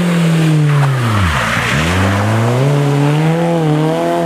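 Rally car's engine (a Peugeot 205) dropping steeply in pitch as it lifts off and slows into a tight bend, with a short scrub of tyres at the slowest point, then climbing again as it accelerates out of the corner.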